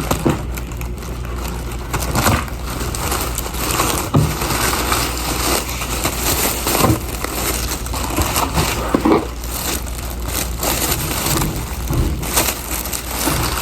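Packaging handled by hand: irregular crinkling and rustling, with occasional light knocks.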